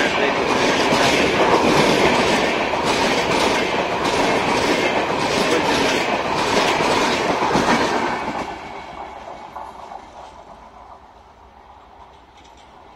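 Indian Railways passenger coaches rolling past at speed, their wheels clattering over the rail joints. The last coach passes about eight seconds in, and the rumble then fades as the train runs away down the line.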